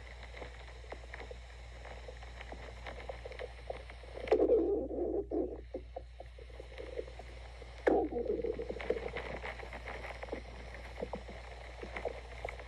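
Human stomach growling: a steady crackle of small gurgles, with two louder gurgles breaking out about four seconds in (lasting over a second) and again about eight seconds in.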